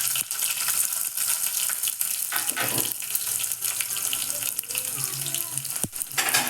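Hot coconut oil sizzling steadily in a small tempering pan with popped mustard seeds, as onion goes in; the hiss swells briefly twice.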